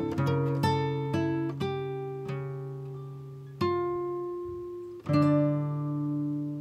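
Background music: slow acoustic guitar, single plucked notes ringing and fading, with a fuller chord struck about five seconds in.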